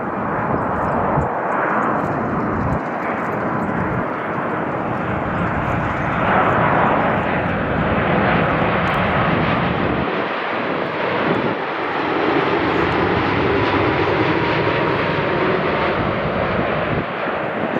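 Jet airliner passing close, its engines a loud, steady rush with a faint whine that drops slightly in pitch.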